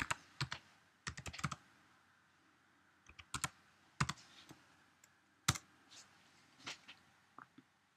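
Computer keyboard typing: irregular short bursts of keystrokes with pauses between them, one single sharper keystroke about five and a half seconds in, and a few softer taps near the end.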